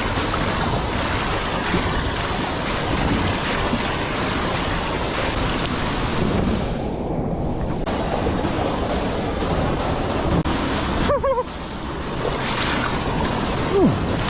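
Steady rush of flowing creek water, briefly dipping about eleven seconds in.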